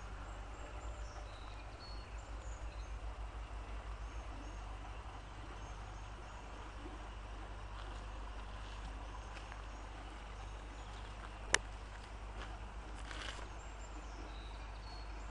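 Faint outdoor ambience: scattered short high chirps from small animals over a steady low hum, with one sharp click about eleven and a half seconds in.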